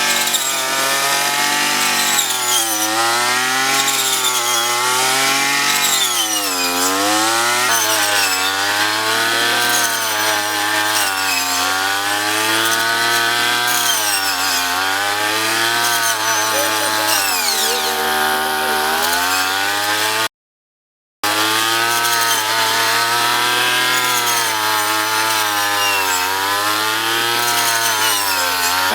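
Small 35 cc petrol engine of a handheld rice harvester running hard. Its pitch sags and climbs again every second or two as the cutter bites into the crop and frees up. The sound drops out for about a second roughly two-thirds of the way through.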